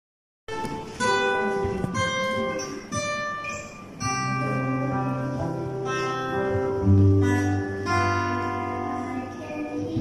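Acoustic guitar playing the opening of a hymn. Separate picked notes ring out about once a second, then fuller sustained chords follow from a few seconds in.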